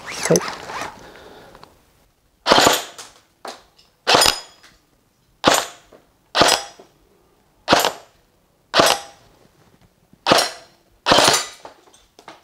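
G&G GR14 airsoft electric rifle firing single shots at a steady pace, about nine shots roughly a second apart, each a sharp crack with a short ringing tail. It runs on an 11.1 V LiPo with a soft M100 spring, which the owner says is too much voltage for the spring and makes the gun fire extra shots on its own.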